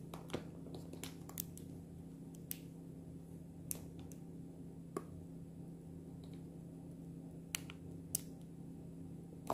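Faint, scattered light clicks and ticks of fingers handling a small slimming-patch packet and its sticker backing, over a low steady hum.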